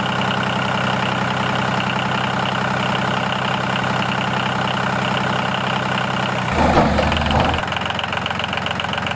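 An engine running steadily at idle, an even tone throughout. About two-thirds of the way through it turns louder and rougher for about a second, then settles back.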